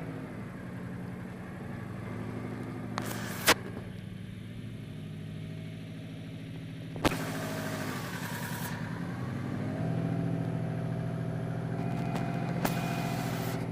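Car engine running steadily with a low hum whose pitch shifts a few times and rises around two-thirds of the way through. Two sharp knocks stand out, the second followed by a brief hiss.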